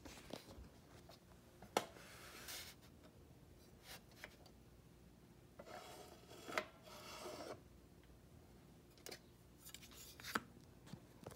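Vintage cigarette dispenser with a bird figure being worked by hand: its parts click and scrape as they slide. There are a few sharp clicks, the loudest about two seconds in, and a longer stretch of scraping a little past the middle.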